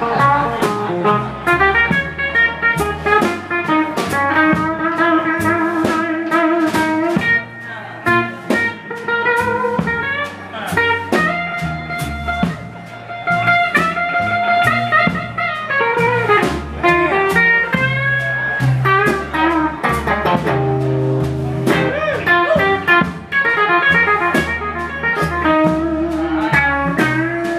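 Live electric blues band: lead guitar playing bent and wavering notes over bass and drums.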